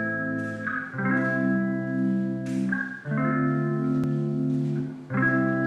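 Intro music: sustained guitar chords with an organ-like tone, changing about every second or two.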